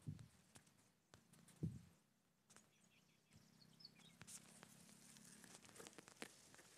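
Near silence: faint background noise with scattered light clicks and two soft thumps, one at the start and one just under two seconds in.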